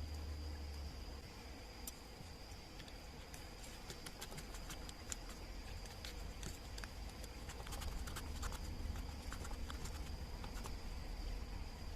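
Faint scattered light clicks and scratches, thickest in the middle, over a steady high thin whine and a low rumble.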